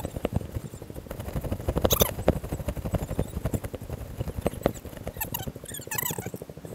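Dense rustling and knocking from a handheld or body-worn camera moving fast along a dirt path between dry corn stalks, with footsteps and leaves brushing past. A few short, high squeaky sounds come about two seconds in and again near the end.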